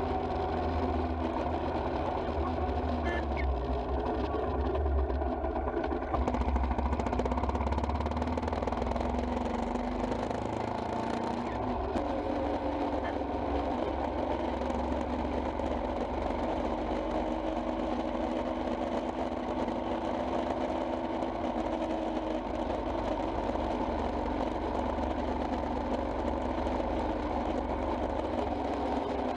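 Royal Enfield Himalayan's 411 cc single-cylinder engine running steadily on the move, with road and wind noise, growing a little louder for a couple of seconds about six seconds in.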